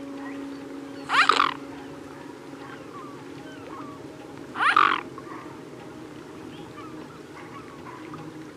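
A bird's loud call, sounded twice about three and a half seconds apart, each a short upward-sweeping cry. Faint chirping of smaller birds runs in the background.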